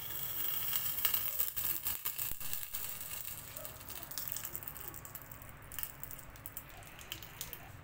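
Oil poured onto a red-hot lump of charcoal in a small steel bowl, sizzling and crackling as it bursts into smoke. This is the dhungar smoking step for a curry. A dense hiss full of sharp crackles is strongest in the first few seconds and slowly dies down.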